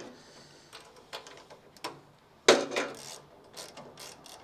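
Hand ratchet clicking as bolts are worked by hand, with scattered metal clicks and one sharp metallic clank about two and a half seconds in.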